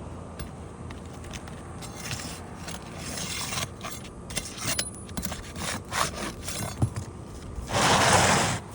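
Asphalt roof shingles being worked loose by hand and pry bar: scattered clicks, taps and scrapes, then a louder rasping scrape lasting under a second near the end.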